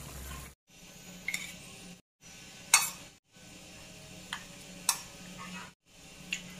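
A ladle scooping fish soup out of a wok and onto a plate, with about five sharp clinks of the ladle against the pan and plate, over a low steady hum. The sound drops out abruptly a few times.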